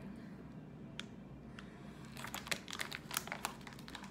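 Foil snack bag crinkling as it is handled: one sharp crackle about a second in, then a quick flurry of crinkles from about two seconds in.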